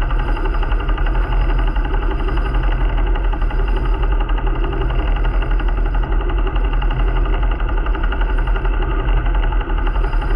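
A sailing yacht's inboard diesel engine running steadily under way, a low, even chugging with fast regular pulsing.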